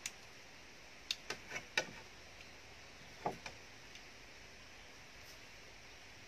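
Eating sounds of someone chewing and tearing steamed chicken meat by hand: a few short wet smacks and clicks of the mouth, clustered about a second in and again around three seconds, over a faint steady hiss.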